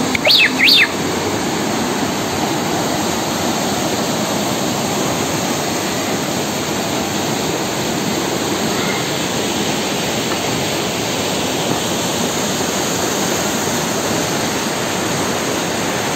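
A fast mountain river rushing and cascading over rocks, snowmelt water pouring through a narrow canyon, a steady loud roar of water. In the first second, two brief high-pitched squeals sound over it.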